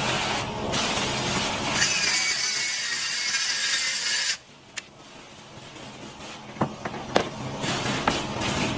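Power tool running with a steady hiss that cuts off suddenly about four seconds in, followed by a few sharp knocks.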